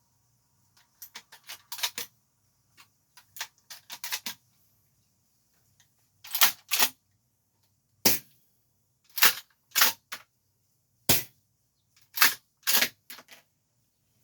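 APS CAM870 MK3 shell-ejecting airsoft pump-action shotgun being reloaded and worked. A run of small clicks comes first as shells are handled and loaded, then loud sharp clacks, several in quick pairs, as the pump action is cycled.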